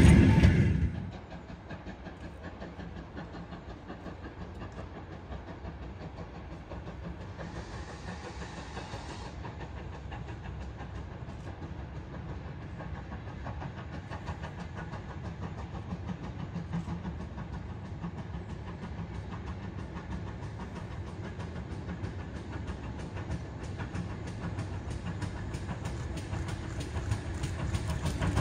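The loud rolling of passing wagons cuts off about a second in. After that, a GWR 0-6-0 pannier tank steam locomotive is heard working in the distance, its rumble and exhaust beats growing gradually louder as it approaches. A brief hiss of steam comes around eight seconds in.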